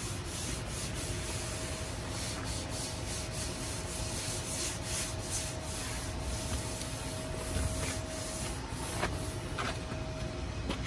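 Scotch-Brite abrasive pad scrubbing gray primer off a truck's sheet-metal body, in a run of repeated rubbing strokes. A faint steady tone hums underneath.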